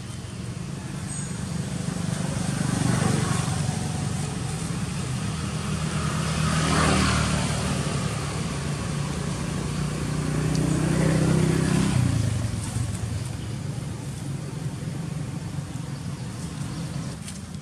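Motor vehicles passing: a low engine sound swells and fades three times, about four seconds apart, over a steady background hum.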